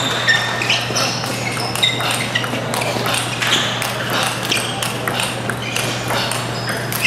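Table tennis rally: the celluloid ball clicks sharply off the rackets and the table in quick succession, mixed with short high squeaks of the players' shoes on the court floor.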